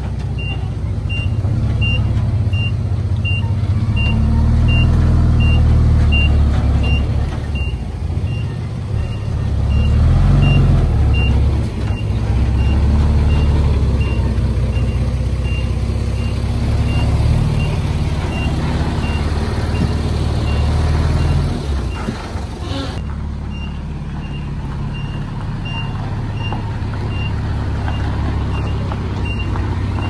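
Komatsu D51PX bulldozer's diesel engine working, its load swelling and easing, with a reversing alarm beeping about twice a second, fainter through the middle.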